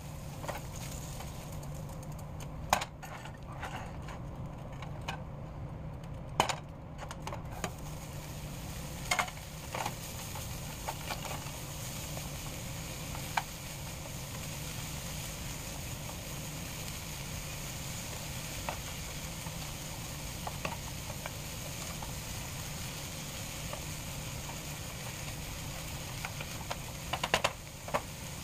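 Diced onions, green peppers and mushrooms frying in a nonstick pan, with a few sharp knocks and clicks of a spatula against the pan, over a steady low hum.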